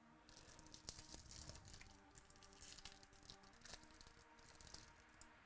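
Faint crinkling and rustling of baseball card packs and cards being handled, an irregular run of small crackles typical of a foil pack wrapper being torn open and the cards slid out.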